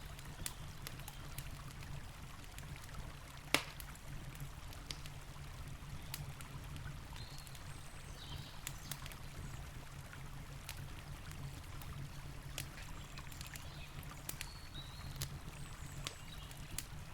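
Campfire crackling with scattered sharp pops, one much louder pop about three and a half seconds in, over the steady low rush of a river.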